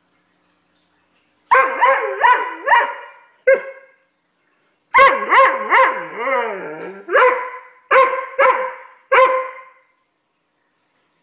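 Red Doberman barking and yowling in a tantrum: a run of loud, pitched barks in two bursts, the second opening with a long wavering yowl before more single barks.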